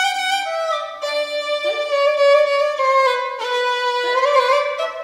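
Violin playing a slow, smooth passage from the solo part of a concerto: long held notes that step mostly downward.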